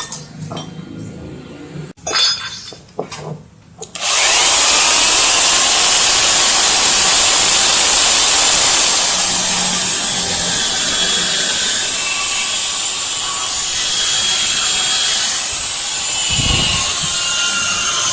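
A few metal clinks as parts are handled, then about four seconds in a power tool starts and runs steadily, scouring carbon deposits off Yamaha Mio engine parts.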